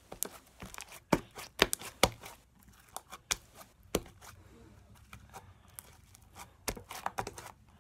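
Slime being spread and stretched by hand, giving irregular sharp pops and clicks: a cluster in the first two seconds, a single one about four seconds in, and a few more near the end.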